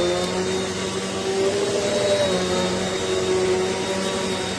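Eureka Airspeed NEU10AE4 bagless upright vacuum cleaner running steadily, its motor giving an even whine over a rush of air.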